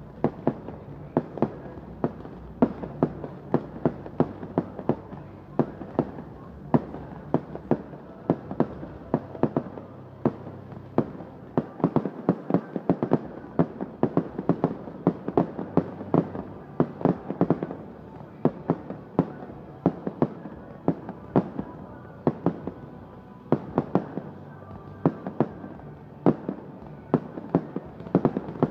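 Fireworks display: a rapid, continuous series of sharp bangs, about two or three a second, from firework comets being launched and shells bursting.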